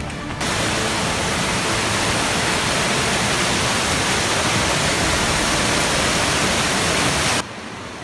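Steady loud rush of water from a river cascade close by, starting abruptly just after the start and cutting off abruptly near the end.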